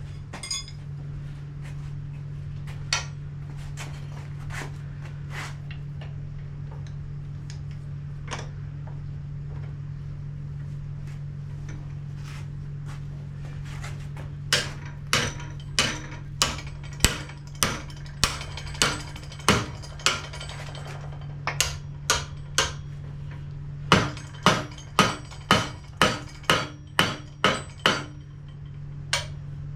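Hammer blows on a steel bar clamped in a vise, bending it into a 90-degree bend over the vise's radiused soft steel jaw: a few scattered knocks, then a run of sharp ringing strikes at about one to two a second from about halfway through, pausing briefly once. A steady low hum runs underneath.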